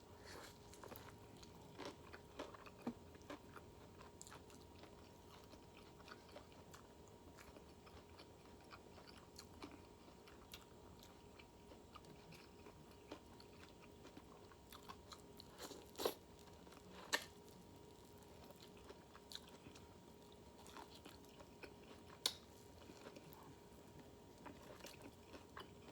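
Faint close-up eating sounds: quiet chewing and mouth noises with a few sharp clicks of biting, the clearest of them spaced through the latter half.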